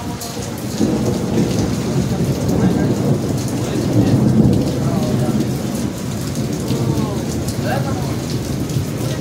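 Thunder rolling for several seconds over steady rain: a low rumble that swells about a second in, is loudest around the middle and then eases off.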